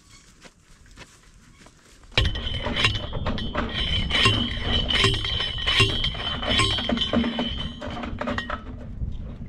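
Hand-held tubular post driver hammering a fence post into the ground. Starting about two seconds in, it strikes the post a little more than once a second, each blow a metallic clank over a steady ringing, and the run eases off near the end.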